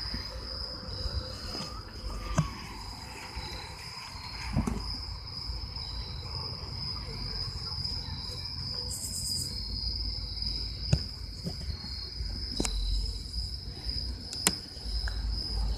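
Insects trilling steadily at a high pitch, a continuous night chorus. Now and then there are sharp clicks and low rumbles from the phone being handled.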